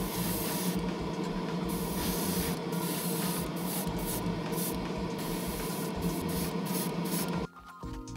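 Paint spraying onto resin figure parts: a hiss that starts and stops in short bursts, over a steady hum. It cuts off suddenly near the end.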